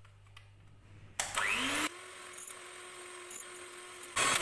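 Electric hand mixer switched on about a second in, its whine rising as the motor speeds up, then running steadily as the beaters whip eggs and sugar in a glass bowl. Near the end it turns loud again and its pitch falls.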